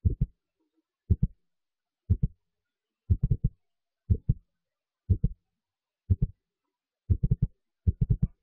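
A low thumping beat: short clusters of two to four deep thumps, about once a second, with dead silence between them, like a heartbeat.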